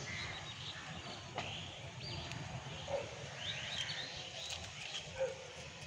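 Outdoor background with small birds chirping now and then, in short high calls. A few faint short knocks are heard.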